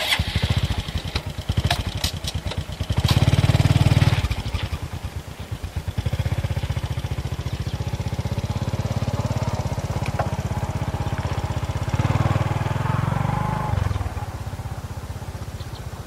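A small engine running with a rapid, even putter. It swells louder about three seconds in and again about twelve seconds in, with a few sharp clicks in the first three seconds.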